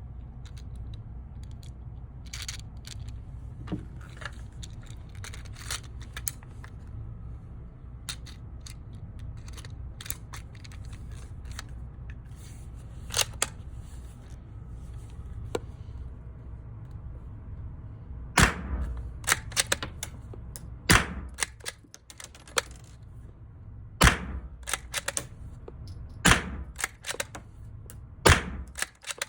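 Browning T-Bolt straight-pull .22 LR rifle firing about five shots, two to three seconds apart, in the second half, with lighter metallic clicks of the action between them. Small scattered clicks of the rifle being handled come before the shooting starts.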